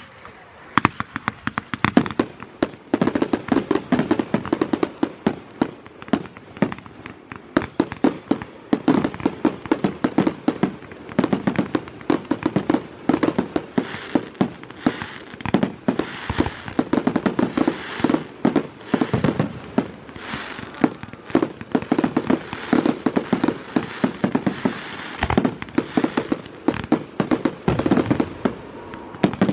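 Fireworks display barrage: aerial shells launching and bursting in rapid, overlapping bangs, many a second, starting about a second in and going on without a pause.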